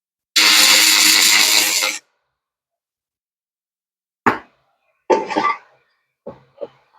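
A 300 W pulsed cleaning laser firing on rusty cast iron: a loud, hissing buzz that starts and stops abruptly, lasting under two seconds. A few short, quieter knocks or handling sounds follow near the end.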